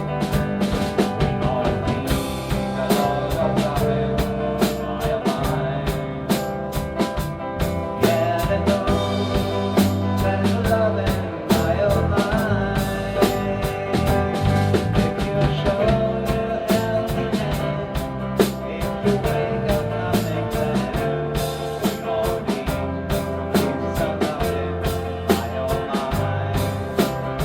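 A rock band playing an instrumental passage, with guitar, bass guitar and drum kit. Drum hits keep a steady beat under held guitar notes and shifting bass notes.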